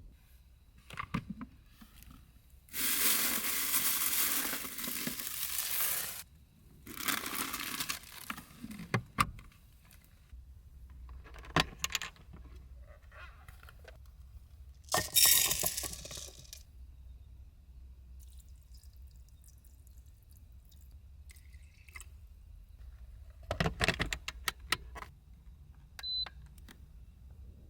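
Small objects being handled in a confined space: a few seconds of rustling or pouring noise, scattered clicks and clinks, and a short electronic beep near the end.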